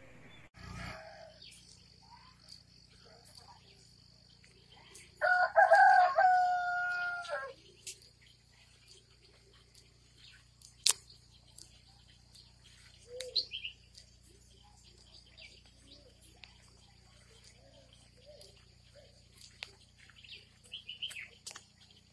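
A loud pitched animal call lasting about two seconds, about five seconds in, over a steady high drone, with a sharp click and a few faint bird chirps later.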